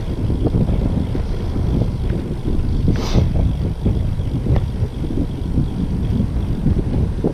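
Wind buffeting the microphone of a camera on a moving bicycle: a loud, unsteady low rush, with a short hiss about three seconds in.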